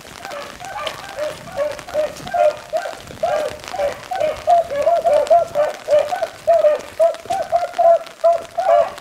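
A pack of beagles baying as they run a rabbit's track, short yelping cries overlapping several times a second, growing denser and louder about three seconds in.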